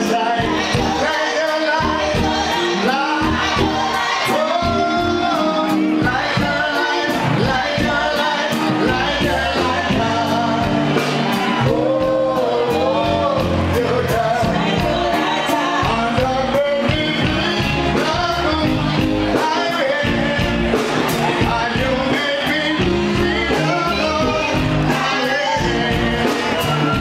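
A live reggae band plays at full volume, with a lead singer's vocal over a steady drum beat.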